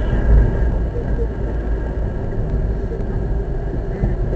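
Car driving on a paved road, heard from inside the cabin: steady low rumble of road and engine noise, with a sharp click near the end.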